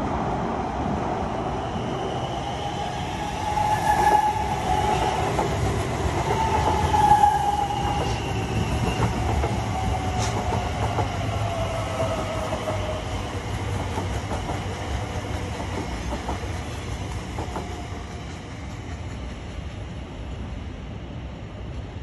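Class 345 electric multiple-unit train running past on the tracks: a rumble under several whining tones that slowly fall in pitch, loudest about four and seven seconds in. The sound then gradually fades, with an occasional click from the wheels.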